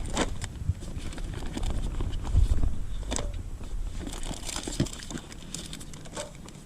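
Scattered clicks and rustling, with a steady low rumble underneath.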